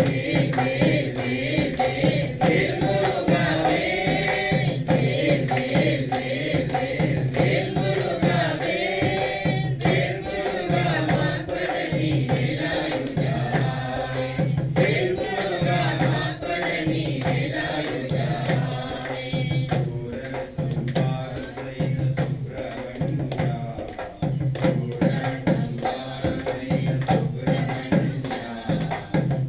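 Hindu temple ritual music: drums beat a steady rhythm under a wavering melody, mixed with mantra chanting.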